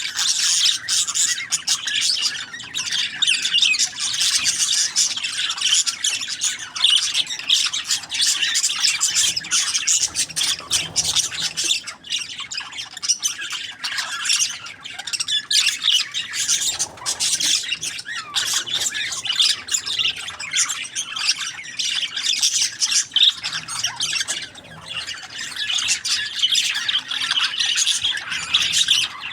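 Budgerigars chattering and squawking with no break, a dense stream of high, overlapping chirps.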